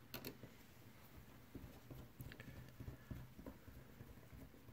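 Faint small clicks and scrapes of a small Phillips screwdriver turning a tiny screw into a plastic computer-mouse housing, with fingers handling the mouse parts.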